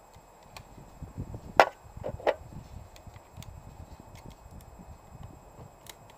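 Umarex Smith & Wesson 586 CO2 air revolver target shooting: a sharp crack about a second and a half in, then a duller, woody knock under a second later, with a few faint ticks later on.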